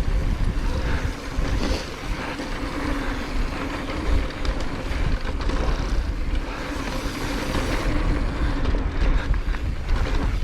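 Mountain bike riding fast down a dirt trail: tyre noise on dirt and rattling of the bike over rough ground, with heavy wind rumble on the microphone.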